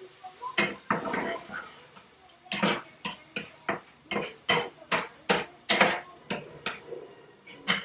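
Spatula knocking and scraping against a skillet while ground meat in tomato sauce is chopped up and stirred: a few sharp clacks at the start, then a quick run of them, about three a second, through most of the rest.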